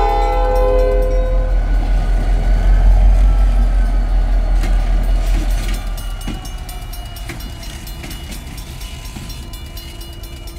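Diesel locomotive running light as it passes close by. Its horn chord ends about a second in. The engine's heavy rumble then builds, with a few sharp clicks of the wheels over the rail joints, and everything fades after about six seconds as it moves away.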